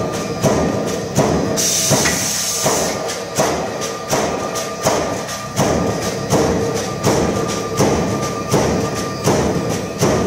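Background music with a steady percussive beat, about three hits every two seconds, and a short burst of hiss about two seconds in.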